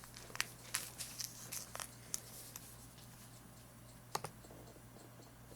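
Faint scattered clicks and taps, most of them in the first two seconds and a pair after four seconds, over a low steady electrical hum.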